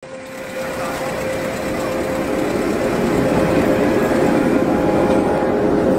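Steady mechanical vehicle rumble with a constant hum, fading in over the first couple of seconds.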